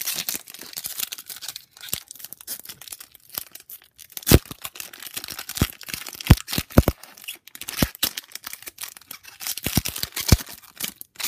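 Foil trading-card pack wrapper being crinkled and torn open, a steady crackle broken by a string of sharp snaps.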